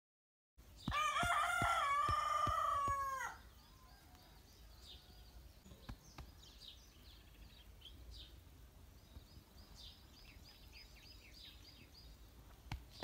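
A rooster crows once, a long call of about two and a half seconds that drops in pitch at the end. Faint high bird chirps follow, with a few soft knocks near the end.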